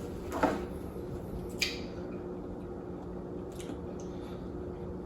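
Wet eating sounds from a seafood boil in sauce: a few short squishy clicks and smacks, over a steady low hum.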